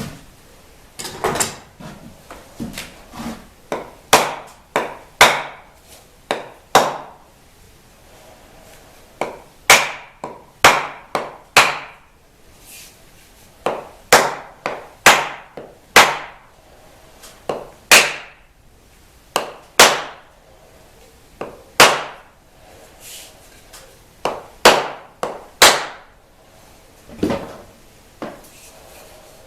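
Hammer blows on wood, struck in short bursts of three to five with brief pauses between.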